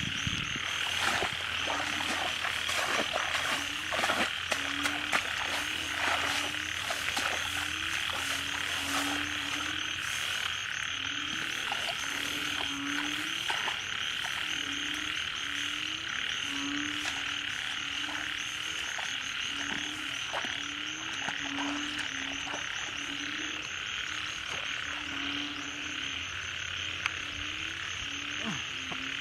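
Frogs croaking, short low croaks repeating about one to two times a second, over a steady high-pitched chorus. A few sharp clicks come in the first several seconds.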